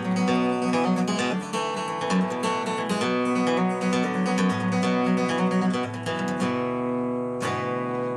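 Music: an acoustic guitar strumming.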